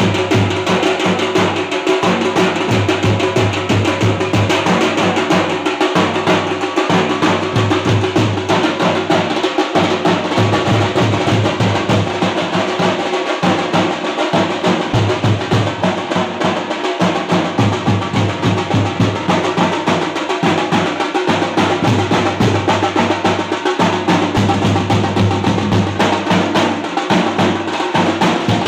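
A troupe of drummers beating large steel-shelled drums with sticks in a loud, continuous, driving rhythm.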